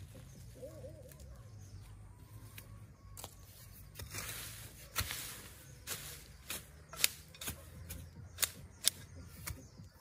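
Long-handled hoe chopping and scraping into red soil and weeds: about eight sharp, irregular strikes in the second half, roughly every half second.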